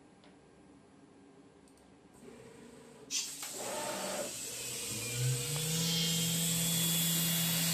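DIY CNC mill's spindle starting up: a steady whine that rises briefly about five seconds in, then holds at cutting speed, with a steady hiss that starts suddenly about three seconds in, likely the compressed-air mist coolant nozzle.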